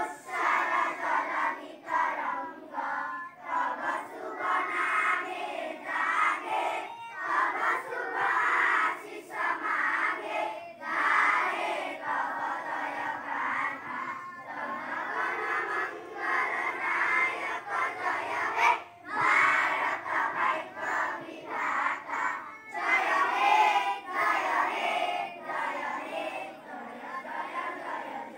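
A large group of schoolchildren chanting together in unison, loud phrases broken by short pauses every second or two.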